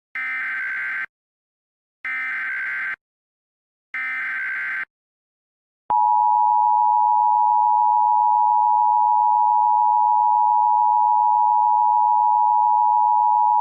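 Emergency Alert System tones: three short buzzy bursts of SAME header data, each about a second long with a second's gap between them. About six seconds in, the two-tone attention signal starts, a steady dual tone that is held for about eight seconds and announces the alert message to follow.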